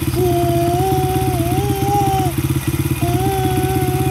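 A 70cc dirt bike engine idling with a fast, even putter, while the rider sits on the stationary bike. A wavering higher-pitched tone sounds over it twice, each time for about two seconds.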